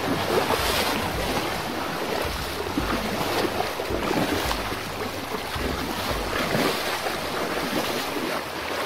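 Shallow stream water rushing and splashing over rocks, a steady even rush, with low wind rumble on the microphone.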